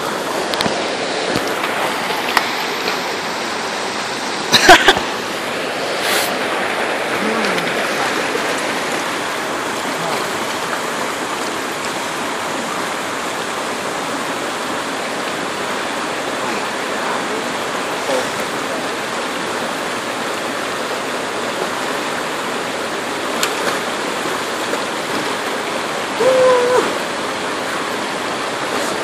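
Mountain creek rushing steadily over rocks and a small cascade, with a few brief sharp knocks, the loudest about five seconds in.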